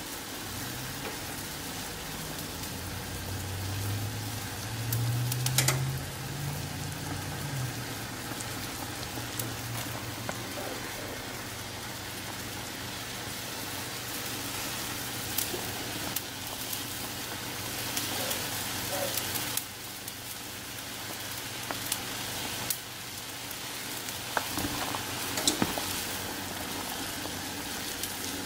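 A pot of soup at a rolling boil on the stove: a steady bubbling hiss with scattered small pops and clicks. A low hum sounds under it for the first several seconds.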